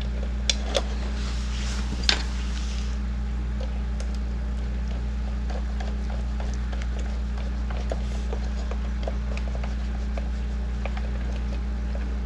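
A steady low electrical hum, with light clicks and taps from small screws and plastic parts being handled while a model locomotive is fastened back together. The sharpest clicks come about half a second in and about two seconds in.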